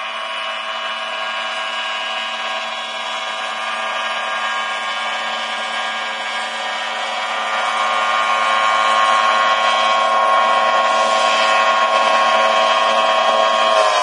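John Deere self-propelled forage harvester running with a steady, high, multi-toned whine, growing louder about halfway through as it drives closer.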